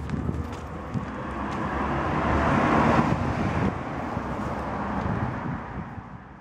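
A vehicle passing by: a rushing noise swells to its loudest about three seconds in, then fades away.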